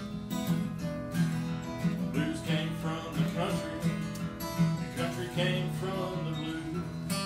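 Acoustic guitar strummed in a steady blues-country groove, with higher single notes picked over the chords about two to four seconds in.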